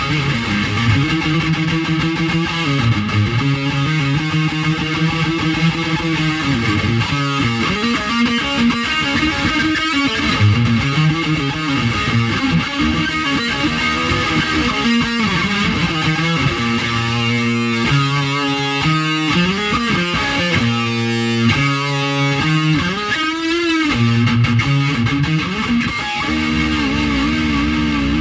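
Electric guitar played solo in a slow, meandering riff of sustained single notes and chords, with a few wavering, vibrato notes in the last few seconds.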